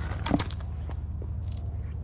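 A footstep crunching on loose railroad ballast rock about a third of a second in, followed by a few faint crunches, over a steady low hum.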